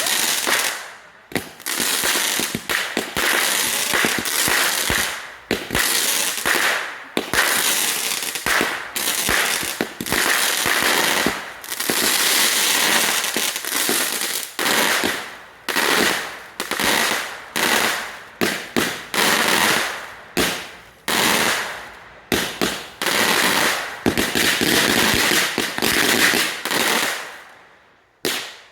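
Fireworks going off in rapid back-to-back volleys of dense crackling bangs. The volleys stop abruptly near the end, after one last short burst.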